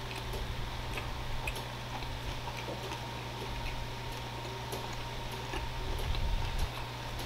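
Chewing with faint, irregular mouth clicks as someone eats a fish sandwich, over a steady low hum.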